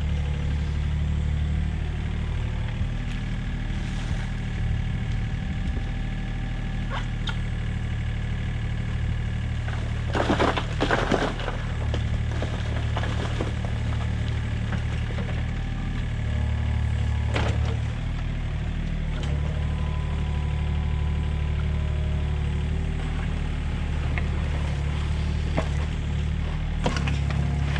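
Mini excavator's diesel engine running steadily while the machine digs, with a short burst of scraping and clattering about ten seconds in.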